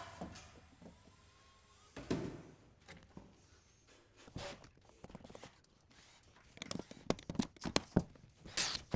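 Clicks, knocks and a thunk from a Sun Sunfire server chassis being handled and opened up: one thunk about two seconds in, then a quick run of sharp clicks and taps near the end.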